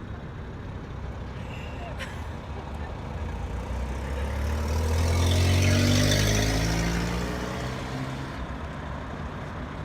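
A motor vehicle driving past: engine and tyre noise swells to a peak about six seconds in, its pitch dropping as it passes, then fades away.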